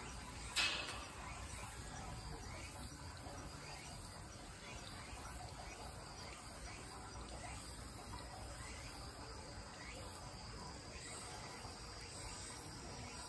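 Steady insect chirping, with one sharp knock about half a second in.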